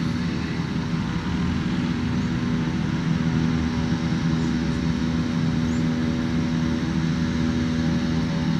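Beechcraft King Air B200's twin turboprop engines running steadily at low power on the runway before the takeoff roll: an even drone with several constant humming tones, no rise in pitch or level.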